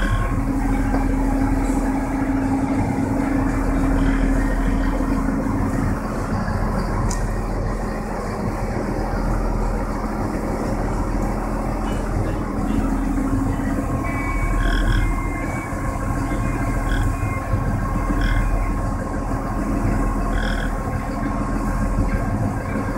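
A scallop boat's diesel engine running steadily under load while the hull grinds and crunches through sea ice, heard from inside the wheelhouse. From about two-thirds of the way in, short high beeps repeat every second or two.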